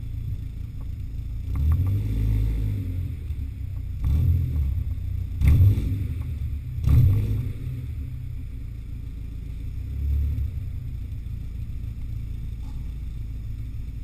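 BMW E36 318is's four-cylinder M44 engine running through a straight-through performance rear muffler, a steady low exhaust rumble inside a concrete car park. The revs swell about five times, the two sharpest and loudest in the middle.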